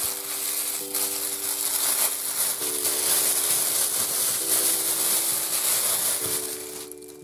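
Clear plastic bag crinkling and rustling as it is pulled off a ball of chilled shortbread dough, dying away near the end.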